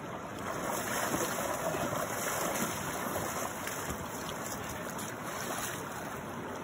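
Shallow river running over gravel and rocks, a steady rush of water.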